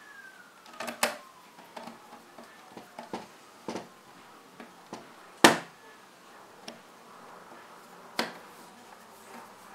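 Scattered clicks and knocks of a projector's circuit board and plastic case being handled and pressed into place, with the sharpest knock about halfway through.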